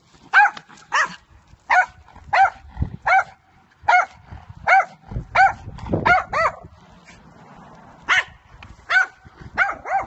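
A small dog barking repeatedly in sharp, high-pitched yaps, about one or two a second, with a pause of about two seconds past the middle.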